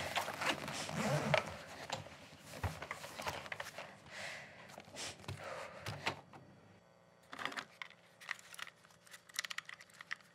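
A dense run of small clicks and rattles that thins to scattered separate clicks about seven seconds in.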